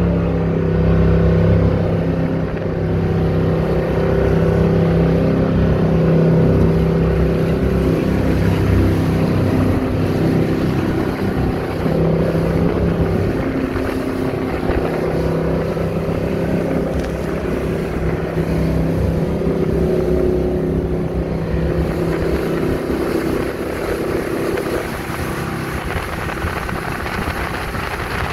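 Jet boat's engine running steadily at speed, heard from on board as a continuous drone. It eases off slightly in the last several seconds.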